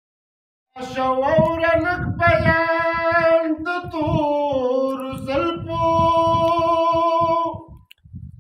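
A man singing a Pashto naat solo, without instruments, in long held notes that glide between pitches. The singing starts about a second in and stops near the end.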